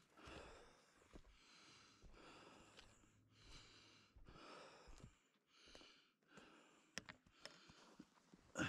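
A person's breathing close to the microphone, heavy and regular at about one breath every second, while walking down a trail carrying gear. A few light clicks near the end, then a single louder knock.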